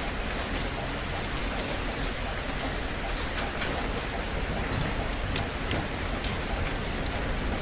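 Rain falling steadily: an even hiss with many separate drops ticking close by on a surface.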